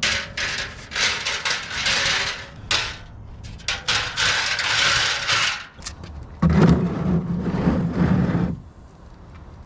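Tools and metal parts knocking and scraping under a car during an oil change, in irregular clanks and rasps, with a lower rumbling stretch about two thirds of the way through.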